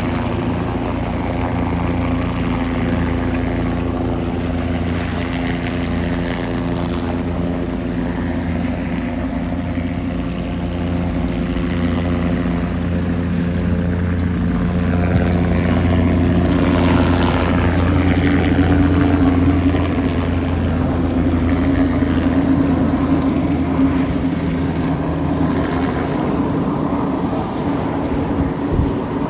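Offshore racing powerboat running at high speed, a loud steady engine drone that swells a little midway, mixed with the engine and rotor of a helicopter flying alongside.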